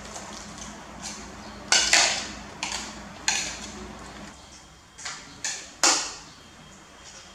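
Metal spoon clinking and scraping against a ceramic bowl while stirring shredded potato and pork in batter: a series of sharp, irregular clinks, about seven in all.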